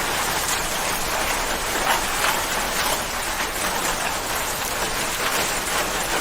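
Steady rain falling on a surface, an even hiss of many drops with a few louder drops standing out.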